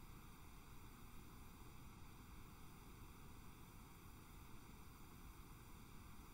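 Near silence: a faint, steady hiss of recording noise with no other sound.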